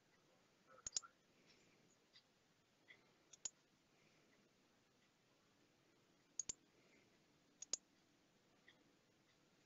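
Faint room tone broken by four pairs of sharp light clicks, with a few softer taps between them: small hard parts of a card reader knocking together as it is handled and fitted to a vending machine front.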